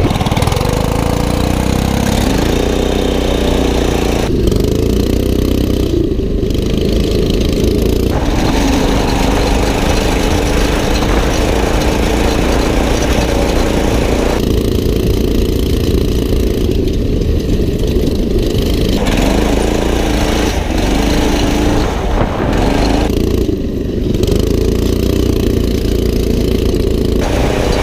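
Small single-cylinder go-kart engines, the karts' 9 hp Subaru Robin and Predator 420cc, running and revving, the pitch climbing and settling again and again.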